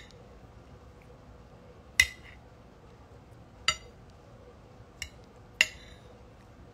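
Cutlery clinking against a dish while eating: four sharp clinks with a short ring, the last two close together.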